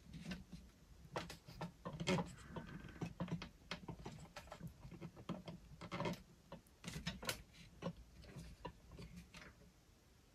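Hands handling carded diecast toy cars in plastic blister packaging: irregular light clicks, taps and rustles.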